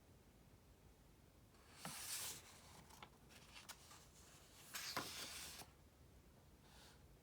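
Paper rustling as the pages of a book are handled and turned: two short rustles about three seconds apart, with a few light ticks of paper between them.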